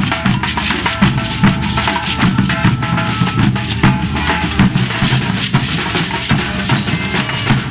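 Street drum group playing while marching: rope-tensioned bass drums and other hand drums beating a steady, driving rhythm.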